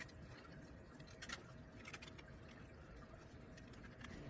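Near silence with a few faint small clicks, the plainest about a third of the way in, from a precision screwdriver working the bracket screws on a graphics card.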